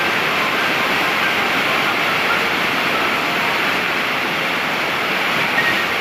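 Large waterfall: a steady, dense rush of falling water and spray.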